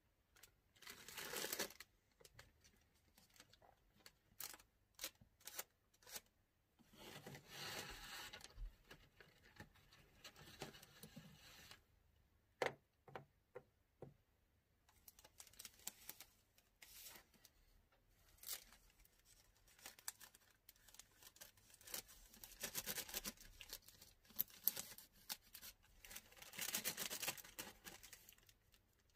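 Patchouli incense sticks being counted out and bagged: several bursts of clear plastic bag crinkling and rustling, with scattered light clicks and taps of the sticks knocking together in between.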